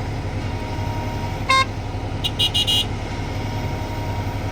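Heavy diesel engines of a Kobelco 220 excavator and a stuck Bharat Benz tipper truck running steadily with a low drone while the excavator pushes the truck. A short horn toot sounds about one and a half seconds in, then four quick high beeps just after two seconds.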